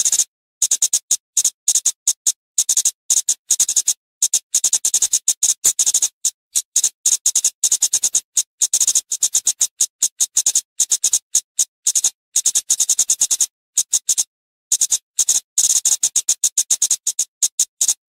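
Flowerpecker (burung cabai) calling: rapid runs of sharp, very high-pitched ticking notes, broken by short pauses.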